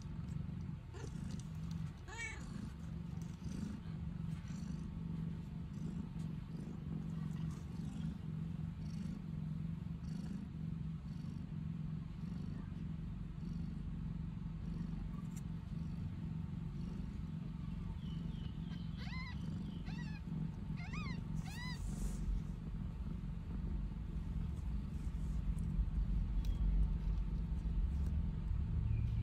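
A nursing mother cat purring steadily while her six-day-old kittens suckle. Shrill kitten mews come once about two seconds in, then as a run of several short rising-and-falling mews about two-thirds of the way through. A low rumble builds underneath near the end.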